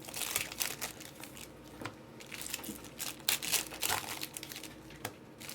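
Crinkling and rustling of handled card packaging, with scattered sharp clicks and short irregular bursts.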